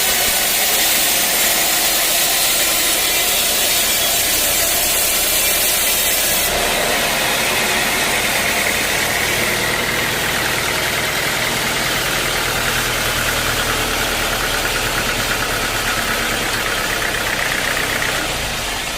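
Sawmill machinery running steadily, an engine-driven saw at work on the logs. About six and a half seconds in, the sound changes suddenly and the hiss in the upper range drops away.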